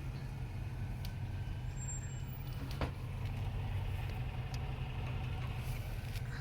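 Street traffic with a steady low rumble of heavy vehicle engines, such as a truck, and one sharp click about three seconds in.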